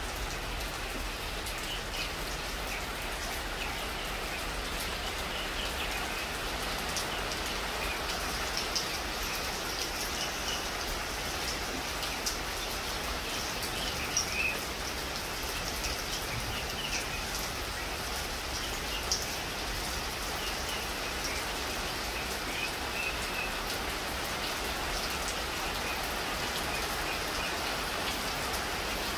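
Steady rain falling on palm fronds and leafy trees, a constant hiss with scattered sharper ticks of individual drops.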